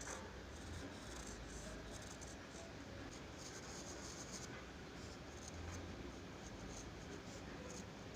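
Drawing strokes scratching on paper: many short, irregular scratches over a steady background hiss.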